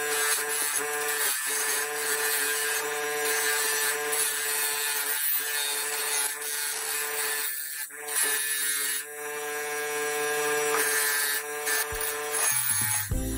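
Bench grinder running with a wire wheel, brushing rust off a steel adjustable wrench: a steady motor hum under the scratchy hiss of the wire bristles on the metal, dipping briefly a few times as the wrench is lifted and turned.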